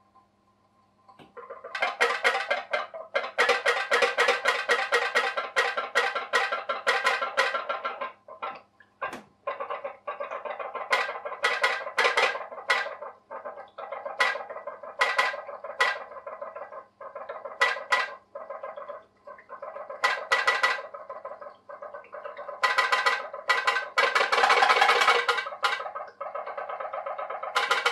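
Homemade pop-pop boat with a jam-jar-lid boiler heated by tea lights, putt-putting: a fast buzzing rattle that starts about a second in and runs in spurts with brief breaks, loudest near the end.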